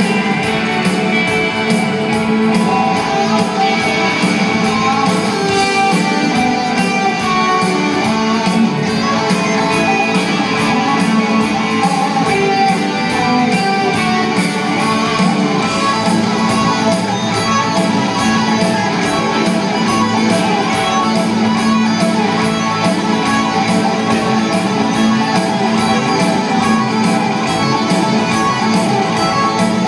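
Live rock concert music led by electric guitars, a full band playing continuously, heard in an arena from among the audience.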